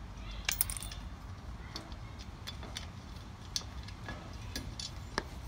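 Irregular light metallic clicks and ticks from hand-fitting a bolt and nut into the steel handle bracket of a garden cart, the loudest cluster about half a second in, over a low steady rumble.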